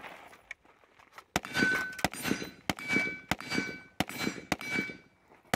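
AR-15-pattern carbine fired in a steady string of about seven shots, roughly one every two-thirds of a second, starting about a second and a half in. Each shot is followed by the ring of a struck steel target.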